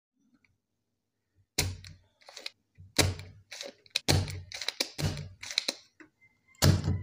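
Spring-loaded desoldering pump (solder sucker) being cocked and fired again and again to suck molten solder off the rectifier pads: a string of sharp snaps and clacks starting about a second and a half in, roughly one or two a second.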